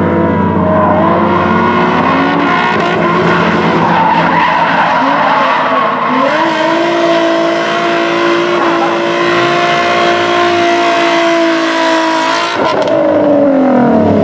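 Nissan 350Z drift car's engine held high in the revs while its rear tyres squeal through a smoky slide, the engine pitch rising and falling with the throttle. For several seconds the note holds steadier, then near the end it drops away.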